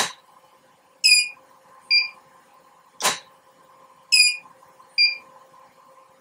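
Profoto B1 500 AirTTL and D1 500 Air studio strobes fired together twice, about three seconds apart: each firing is a sharp pop from the flash tubes. After each firing come two short, high beeps, about one and two seconds later, as the heads finish recharging and signal they are ready to fire again.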